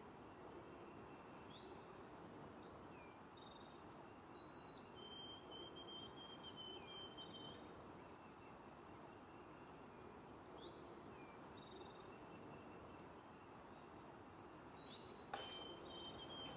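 Faint birds chirping and whistling, short calls scattered over a low steady background hiss, with a faint knock near the end.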